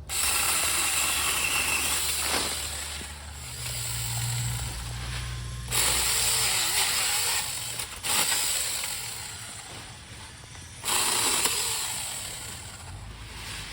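Tomy Vic battery-powered mini chainsaw running and cutting through a thicker tree branch, its level jumping abruptly a few times.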